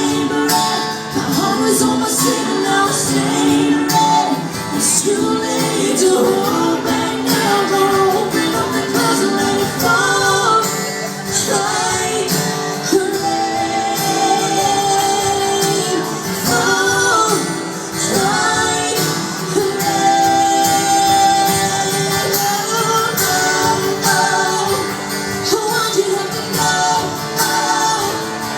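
Live country music: a woman singing lead over a band with guitar and drums.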